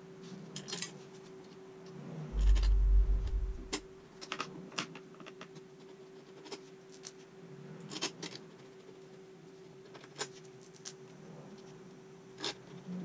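Light metallic clicks and clinks of tools and small parts being handled on a workbench, with one heavy low thump about two and a half seconds in, over a faint steady hum.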